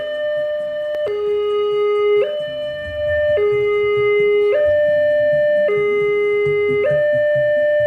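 Railway level-crossing warning alarm: an electronic two-tone signal alternating between a higher and a lower note, each held about a second. It sounds while the barriers are down, to warn that a train is approaching.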